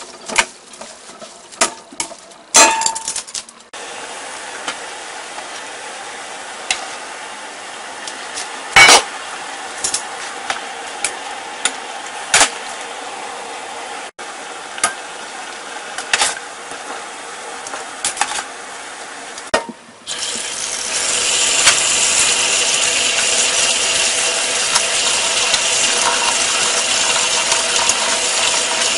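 Metal tongs clicking against a stainless steel colander as glass sweet potato noodles are tossed, then a pot of spinach boiling steadily with the odd clink of metal. About twenty seconds in, a tap runs hard into a mesh strainer of blanched spinach, with tongs knocking on the mesh.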